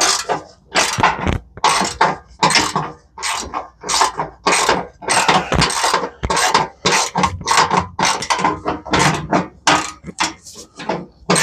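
Hand ratchet wrench clicking in quick repeated back-and-forth strokes, about two to three a second, working bolts loose on the underside of the truck.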